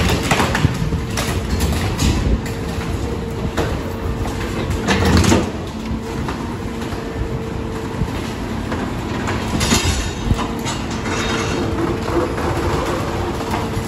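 Mack rear-loader garbage truck with a Leach body running with a steady hum, while wheeled steel dumpster carts of demolition debris are rolled up and tipped into the hopper, clattering and knocking. A loud rumbling crash about five seconds in, as debris tumbles into the hopper.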